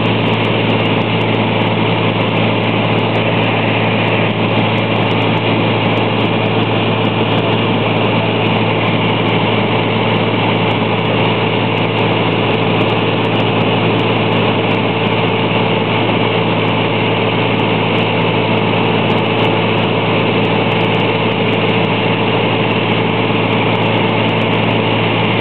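Steady drone of an aircraft engine in flight: a strong low hum with a higher tone above it, unchanging in level.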